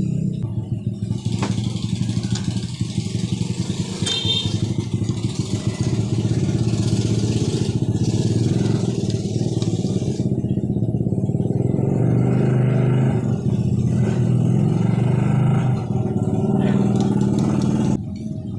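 A small engine running steadily, with a fast, even pulsing.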